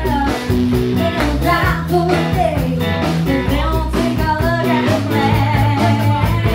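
A woman singing lead into a microphone over an amplified live band with guitar, a country song.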